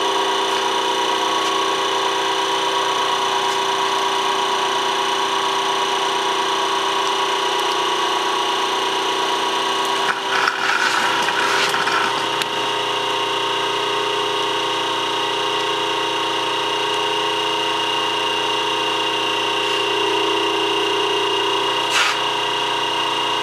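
South Bend metal lathe running steadily, its motor and belt drive giving a constant hum made of several steady tones. A rougher noise rises briefly about ten seconds in, and there is a single click near the end.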